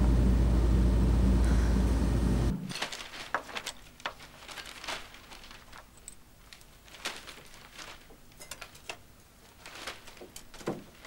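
A loud, steady low rumble cuts off about two and a half seconds in. It gives way to a quiet room with scattered light clicks and knocks of tableware being handled at a dining table.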